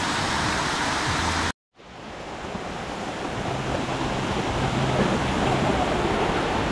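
Waterfall rushing, a steady noise of falling water; it cuts out abruptly about a second and a half in, then fades back up over the next few seconds.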